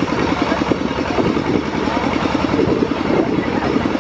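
Tractor engine running steadily with a rapid, even chugging beat as it pulls a passenger trailer along a dirt road.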